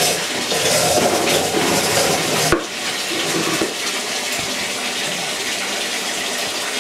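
Steady running water as a small pump, set inside a mesh bag, drains the soaking water out of a tote of wet stone wool grow medium through a hose. A single sharp knock about two and a half seconds in.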